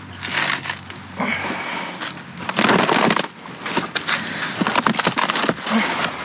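Rummaging through a pile of curbside trash: irregular crunching and rustling of bags and debris with scattered sharp clicks and knocks, loudest about two and a half seconds in.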